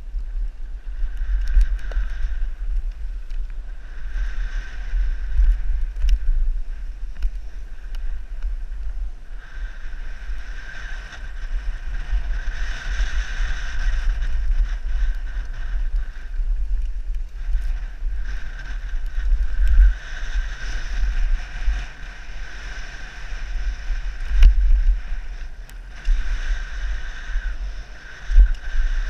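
Mountain bike ridden fast down a dry dirt and gravel trail, heard from a helmet-mounted camera: wind rumbles on the microphone throughout, a high buzz, typical of the rear hub freewheeling while coasting, comes and goes in stretches, and sharp knocks from bumps and the chain sound now and then.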